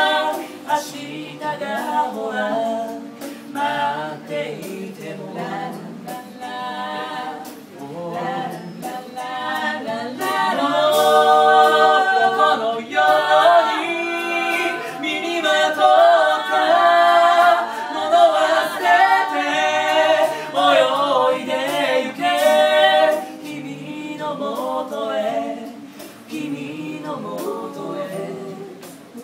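A small group of men's and women's voices singing a cappella in harmony, with no instruments. The singing is loudest through the middle and drops quieter for the last few seconds.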